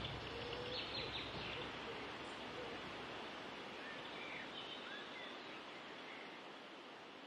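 Outdoor nature ambience: a stream running in a steady wash, with a few short bird chirps, fading out gradually.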